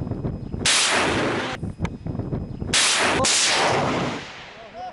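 Towed multiple rocket launcher firing: two launches about two seconds apart, each a sudden blast followed by a rushing hiss that fades away over about a second.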